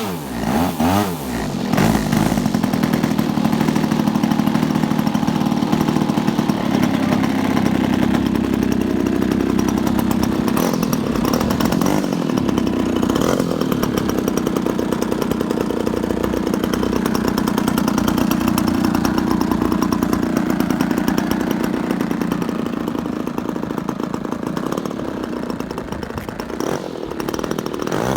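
Two-stroke gas engine of a giant-scale RC aerobatic airplane with a propeller running: the throttle drops sharply at the start, it then runs steadily at low speed, and it revs up steeply near the end.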